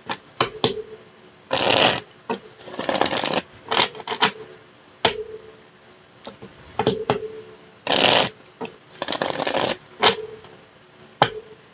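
A deck of tarot cards being shuffled by hand: two spells of rustling shuffles, with sharp taps and clicks of the cards between them.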